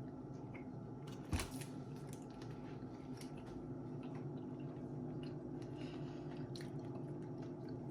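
Faint chewing of a soft cream-filled croissant over a low steady hum, with one sharp click about a second and a half in.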